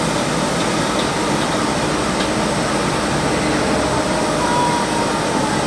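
Diesel engines of crawler excavators running steadily, a dense mechanical drone, as an excavator is loaded onto a flatbed truck.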